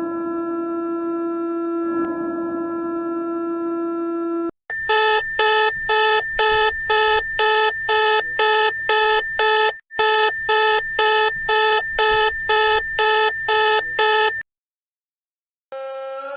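Electronic emergency alert tones. A steady held tone for about four and a half seconds gives way to a rapid beeping alarm at about two beeps a second for some ten seconds. After a moment of silence a siren begins to rise near the end.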